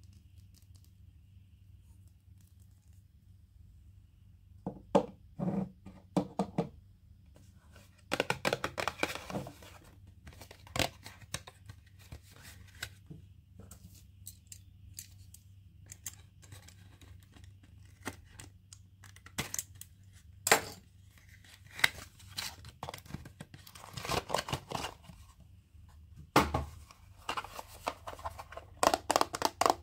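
Toy packaging being opened by hand: irregular bursts of tearing and crinkling wrapper, mixed with scattered clicks and taps. It begins about five seconds in.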